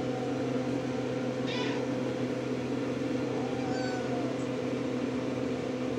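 Faint, high-pitched mews from a RagaMuffin kitten, once about a second and a half in and again around four seconds in. A steady low hum runs underneath.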